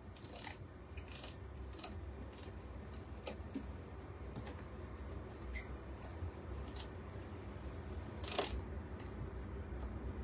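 Vorwerk Thermomix selector dial being turned to set the timer and temperature: a string of short, light clicks, with one louder click about eight seconds in, over a low steady hum.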